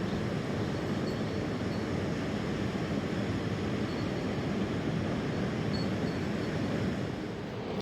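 Steady rushing of a mountain river.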